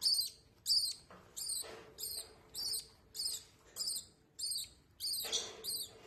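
Hand-fed lovebird chick giving high, repeated food-begging chirps, about two a second, because it is still hungry for formula. Soft rustling of a paper tissue wiping its beak comes twice.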